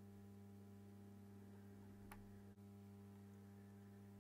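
Near silence with a steady low electrical hum, broken once about two seconds in by a single faint, sharp click of a watchmaker's steel screwdriver tip meeting a screw in the watch movement.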